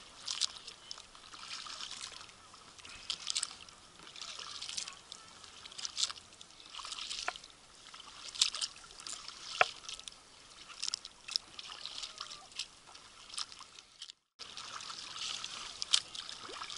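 Two kayak paddles dipping and pulling through the water in a steady rhythm, a splash about every second or so, with drips trickling off the blades and a few sharp knocks. The sound drops out briefly about fourteen seconds in.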